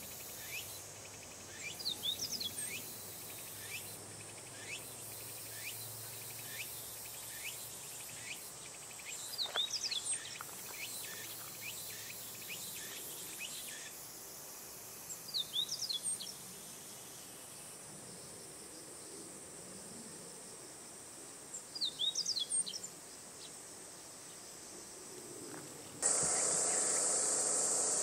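Meadow bunting singing: short, quick phrases of high chirping notes, four phrases about six seconds apart, over a steady high insect buzz. Near the end a much louder steady hiss comes in suddenly.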